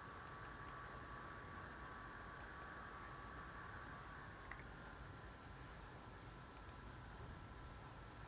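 Small birds giving very short, high-pitched chip calls, mostly in pairs, about every two seconds, over a faint steady hum.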